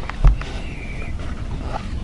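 A single dull knock about a quarter second in, from a spotting scope being handled and adjusted on a shooting bench, then a low steady rumble.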